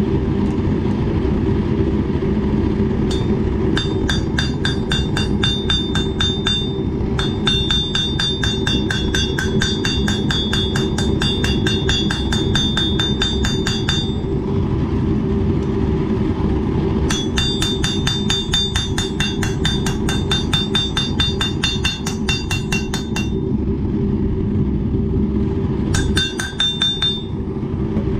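Flat-faced hammer striking a red-hot 1095 high-carbon steel knife blade on a railroad-track anvil, about four ringing blows a second in four runs with short pauses between, planishing the hammer marks flat. A steady low hum runs underneath.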